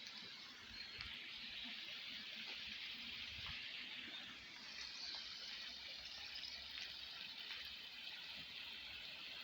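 Running water, such as a stream, flowing steadily: an even hiss.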